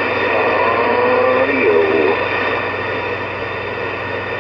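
CB radio receiver hissing with static, with faint, garbled voices of distant stations breaking through in the first couple of seconds.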